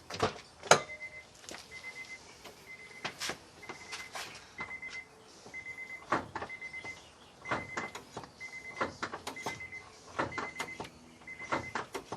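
A car's warning chime beeping steadily, about one short beep every half second, with irregular clicks and knocks as the brake pedal is pumped repeatedly to bleed the brakes.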